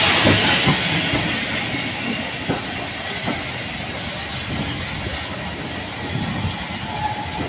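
Hunslet 0-6-0 saddle tank steam locomotive pulling away: its steam hiss fades over the first couple of seconds. Then the coaches roll past with a steady rumble and scattered clicks of wheels over the rail joints.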